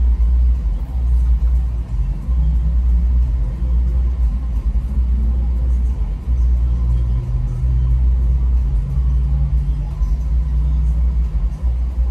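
Steady low rumble of a car idling in stopped traffic, heard from inside the cabin.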